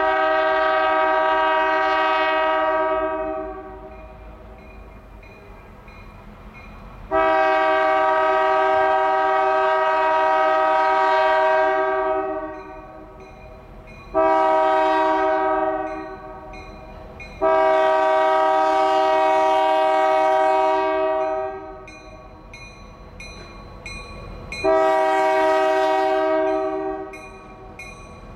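EMD GP40-2 diesel locomotive's multi-note air horn blowing a series of blasts, mostly long with one short, in the long-long-short-long pattern sounded for a grade crossing. A low locomotive and train rumble runs between the blasts.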